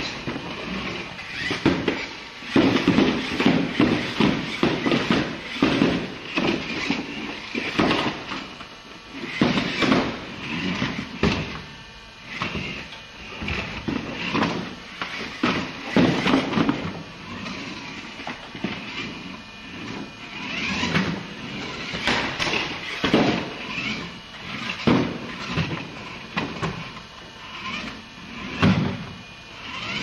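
A remote-control car's small electric motor whirring in short, irregular stop-start bursts, with frequent knocks and rattles.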